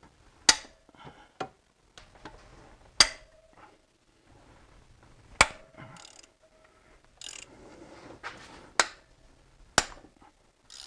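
Head bolts on a BMW M54 inline-six cylinder head being cracked loose with a long-handled wrench on an E12 socket: about five sharp snaps as bolts break free, with smaller wrench clicks and metal clatter between them.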